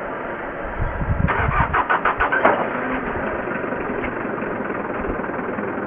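Small diesel truck engine cranked by the starter in rapid pulses for about a second and a half. It catches and settles into a steady idle.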